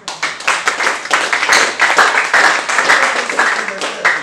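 A congregation clapping rapidly, the claps thickening into applause within the first second and a half, with voices mixed in.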